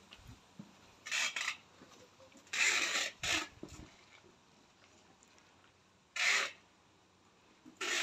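Short rasping scrapes, about five in uneven succession, as hands work and scrape the soil in a large plant pot.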